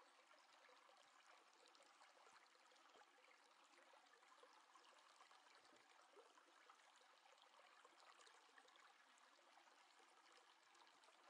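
Near silence: faint room tone, with only a light hiss.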